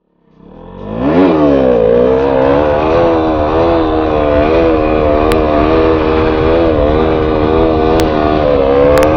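KTM Duke motorcycle engine revving up about a second in, then held at fairly steady high revs with a rhythmic wavering of the throttle, as in stunt riding. A few sharp clicks come near the end.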